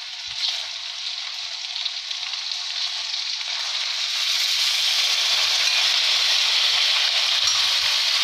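Chicken pieces sizzling as they go into hot butter and oil in an iron kadai, the sizzle growing louder about halfway through as the rest of the chicken is tipped in from a plate.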